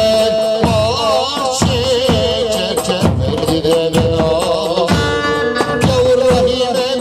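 Turkish folk dance music: an ornamented melody with a wavering pitch over a steady drum beat.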